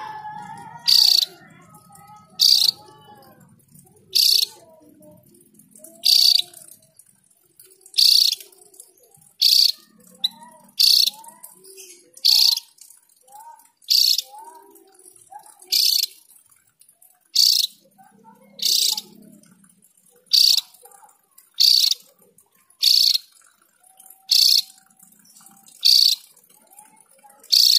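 Opior jawa (Javan grey-throated white-eye) calling: a short, high, bright note repeated about every one and a half seconds, about eighteen times.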